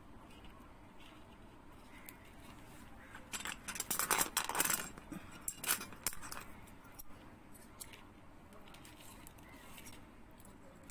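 Strung pearl beads of a beadwork bag clicking and rattling against each other as the piece is handled, in a busy run of small clicks a few seconds in, then a few scattered ticks.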